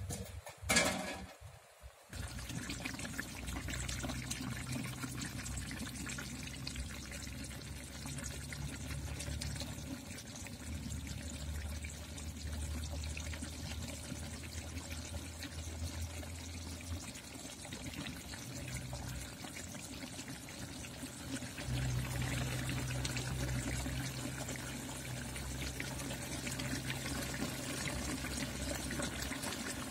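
A short clatter about a second in as the metal lid comes off the pot, then fish curry (meen kuzhambu) bubbling and simmering steadily in the open aluminium pot.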